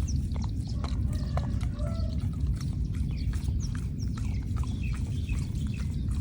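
An animal grazing: short crisp snaps of grass being torn and chewed, many times over a steady low rumble, with faint bird chirps.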